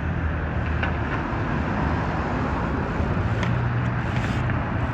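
Street traffic: a motor vehicle's engine running steadily close by, over a loud rush of road noise, with a couple of faint ticks.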